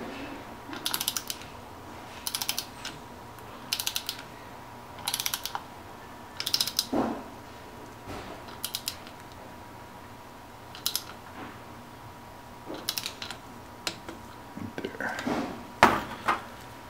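Torque wrench ratchet clicking in short rapid runs, one run about every second and a half, as it is swung back and forth tightening a pump's impeller nut onto the motor shaft. A single louder knock comes near the end.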